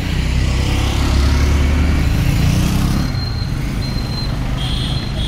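Street traffic, with a heavy road vehicle passing close: a deep rumble that swells and fades about three seconds in. A few thin high steady tones sound near the end.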